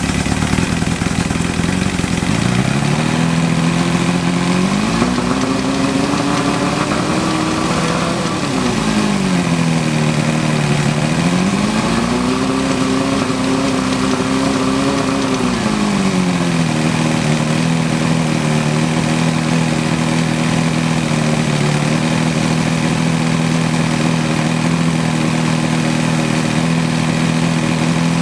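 1983 Johnson 90 hp V4 two-stroke outboard running just after starting. It is revved up twice, each time held for a few seconds, then settles to a steady idle from about sixteen seconds in.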